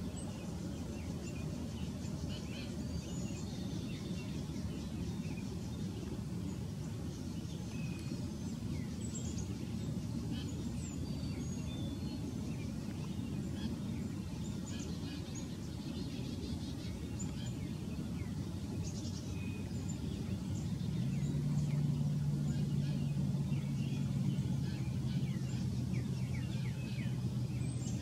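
Many small birds chirping and calling in a dawn chorus over a steady low rumble. About three-quarters of the way in, a steady low engine hum joins.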